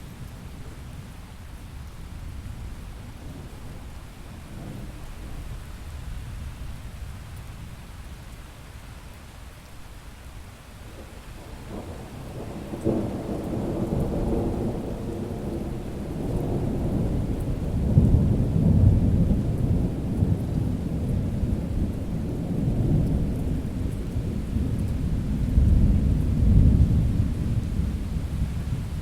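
Thunderstorm: steady rain with low rumbling, then a long roll of thunder that builds from about halfway through and swells loudest twice near the end.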